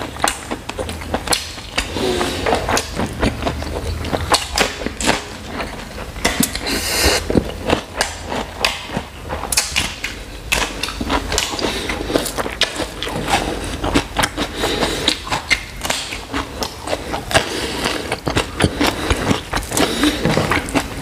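Close-miked eating: chewing and biting with wet mouth clicks and smacks, and a hand squishing and mixing rice and chicken curry on a foil tray.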